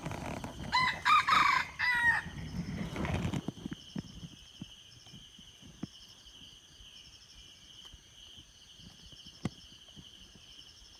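A red junglefowl crows once, about a second in: a short, loud crow broken into a few parts. Low rustling of steps in leaf litter runs under it and dies away a few seconds in.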